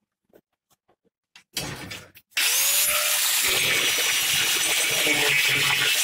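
Angle grinder starting up about a second and a half in, then running steadily with a high whine as its abrasive disc cuts through the steel wire of a metal grate.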